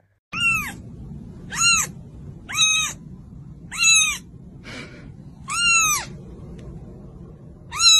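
A young kitten mewing repeatedly, high-pitched, about six calls roughly a second apart, each rising then falling in pitch, one of them breathier and weaker.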